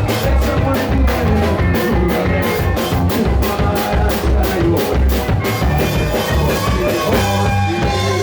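Live band playing fast gypsy-punk music, a drum kit driving a quick beat under guitar and other instruments. The hard drum hits fade out about five or six seconds in, leaving the sustained instruments.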